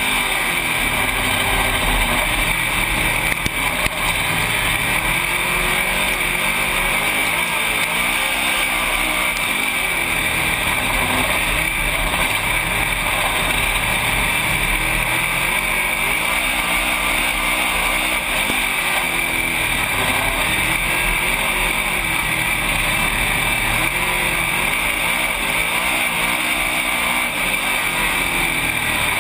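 Dirt late model's racing V8 engine at full throttle, heard from inside the cockpit with wind noise, its pitch rising and falling every few seconds as it lifts and gets back on the throttle around the dirt oval.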